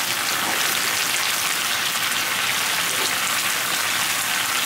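Stem wakame simmering in a frying pan, its dashi, soy and mirin sauce boiling hard and sizzling with a steady crackle as it is cooked down to a glaze.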